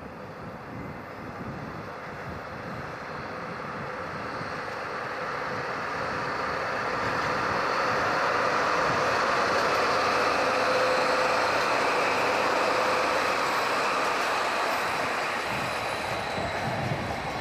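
Two DD51 diesel-hydraulic locomotives working double-headed on a freight train, their engines growing louder as they approach and pass, loudest about halfway through. Near the end the container wagons roll past a little more quietly.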